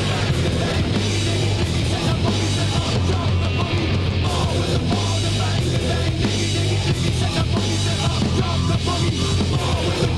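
Loud rock music with a driving bass line, drums and guitar.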